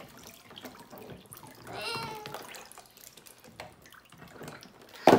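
Water sloshing and dripping in a plastic tub as a LEGO model and loose bricks are lifted out of it, with light clicks of bricks and one sharp knock near the end.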